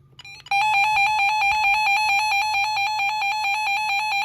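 Midland WR30 weather alert radio sounding its alert siren during a test: a loud, high electronic beep pulsing rapidly and evenly, starting about half a second in after a couple of faint clicks and cutting off abruptly at the end.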